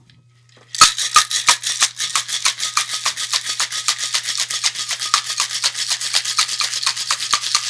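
Cocktail shaker packed with ice being shaken hard, the ice rattling against the tin in a fast, even rhythm of several strikes a second, starting about a second in.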